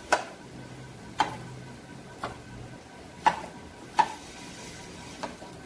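Metal spatula cutting a steamed egg slab into pieces in a nonstick kadai, its edge knocking sharply on the pan six times, roughly once a second.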